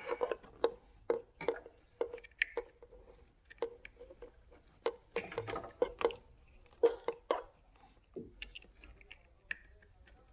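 Irregular clicks and light knocks of small plastic parts being handled and fitted by hand, some close together, some a second or more apart.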